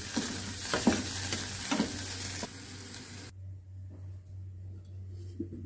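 Mushrooms sizzling in hot oil in a non-stick pan while a wooden spatula stirs and scrapes them, with a few sharp scrapes. The frying cuts off abruptly about three seconds in, leaving a faint low hum.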